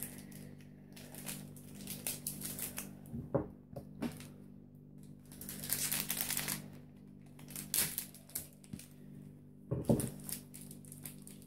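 Small plastic candy packets being picked and squeezed open by hand: faint, irregular crinkling and clicking in short bursts.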